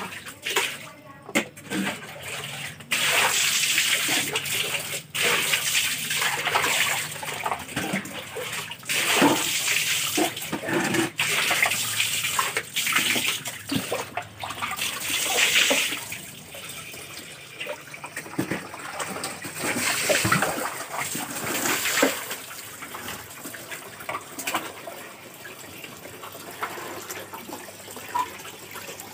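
Hands swishing and rinsing okra, green chillies and tomatoes in a plastic basin of water: splashing and sloshing, with small knocks as the vegetables are stirred and lifted. Busier for the first half, quieter after about sixteen seconds.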